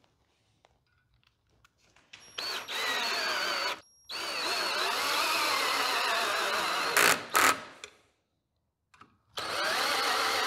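Cordless drill driving number 12 wood screws into a wooden plank. It runs in three bursts, with the motor's pitch wavering under load, and there are two sharp clicks near the end of the longest burst.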